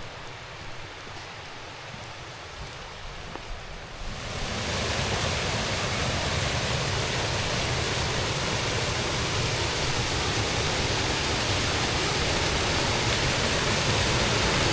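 Waterfall in heavy flow, swollen by a week of rain: a steady rush of water, fainter at first, then much louder and fuller from about four seconds in.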